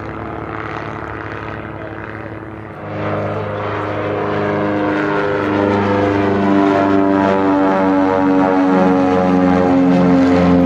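Propeller airplane's engine drone, growing louder from about three seconds in as the aircraft comes closer, its pitch easing slightly downward.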